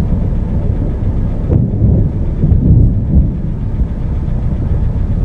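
Thunderstorm: loud rumbling thunder over steady rain and wind noise.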